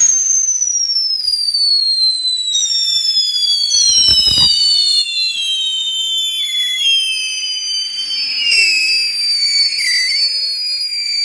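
Three Sassy Sally screaming fireworks whistling at once, loud and shrill, starting suddenly; the overlapping whistles each slide slowly down in pitch, with more joining a few seconds in. A short low thump about four seconds in.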